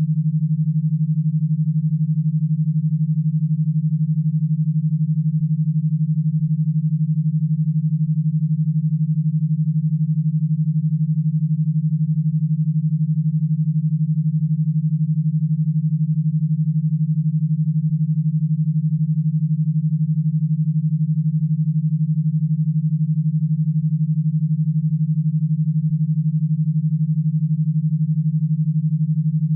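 A synthesized e-stim drive signal, a single steady low electronic tone that holds unchanged throughout. It is the 12 Hz stimulation track meant to be fed into an electrostimulation power box.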